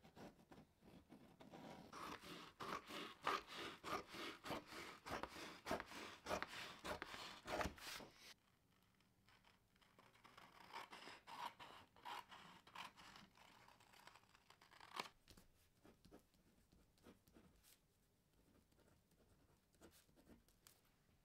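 Faint scissors cutting through stiff brown pattern card, and a pen scratching across the card as it marks out the pattern. A dense run of snips and scratches in the first half gives way to quieter, sparser sounds with one sharp click about two-thirds of the way through.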